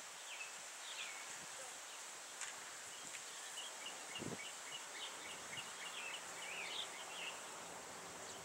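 Faint outdoor ambience: a steady high insect drone, with a bird chirping in quick short notes about a second in and again through the middle. There is one soft thump about halfway.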